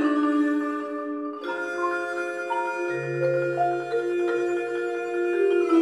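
Mallet percussion ensemble of marimbas and vibraphones playing ringing chords with a melody moving above them. A low bass note comes in about three seconds in.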